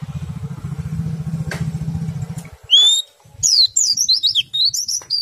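White-eye (pleci) song: a single rising whistle about halfway through, then a fast run of high, sharply falling chirps. A low pulsing buzz runs through the first half, under and before the song.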